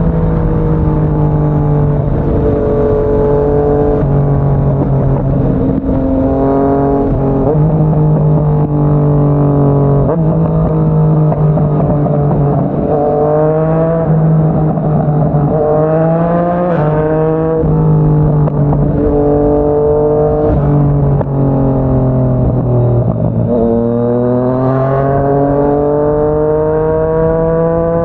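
Yamaha MT-09's three-cylinder engine through a Yoshimura R55 slip-on exhaust, riding under load. Its pitch holds steady for stretches and steps up and down, then rises under throttle twice: about halfway through and again over the last few seconds.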